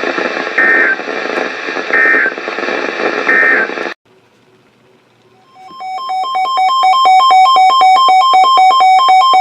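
NOAA Weather Radio broadcast hiss carrying three short data-tone bursts, the SAME end-of-message code that closes a warning, before the transmission cuts off about four seconds in. After a short gap, a loud electronic alert beep starts, pulsing rapidly between two pitches.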